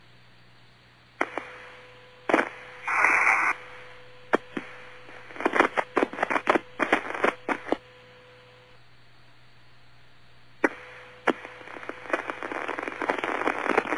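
Mission Control radio loop with no voice on it: crackling static and scattered sharp clicks, with a brief burst of hiss about three seconds in. Over a steady low hum, the crackle thickens again near the end.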